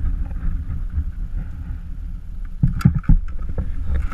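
Wind buffeting the camera microphone as an uneven low rumble, with a quick cluster of three or four knocks a little under three seconds in.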